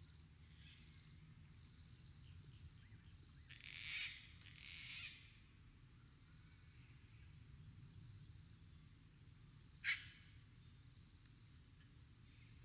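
Faint outdoor dusk ambience over a low steady rumble: two short, high-pitched animal calls repeat regularly, each about every second or so. Louder, harsher animal calls come about four seconds in, and a single sharp, brief call near the end.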